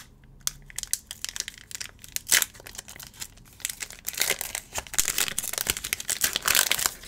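Foil wrapper of a Pokémon XY Evolutions booster pack crinkling and crackling as it is handled, with louder, denser crinkling over the last three seconds as the top of the pack is torn open.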